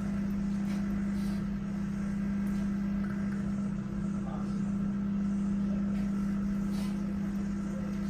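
Sharp domestic microwave oven running with metal inside: a steady hum, with a few faint crackles from sparks arcing between the pieces of silver in the crucible.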